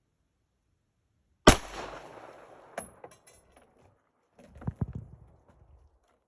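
A single 9mm pistol shot from a Glock 34 firing a Winchester 147-grain Silvertip hollow point: one sharp crack about a second and a half in, with echo trailing off for about a second. A light click and a few faint ticks follow, then a short cluster of dull knocks about three seconds after the shot.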